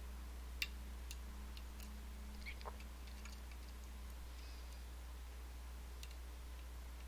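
Small clicks and ticks of a custom pick working the sliders of an EVVA ICS dimple lock held under tension with a Z-bar: one sharper click about half a second in, a scatter of faint ticks over the next few seconds, and one more click near the end, over a low steady hum.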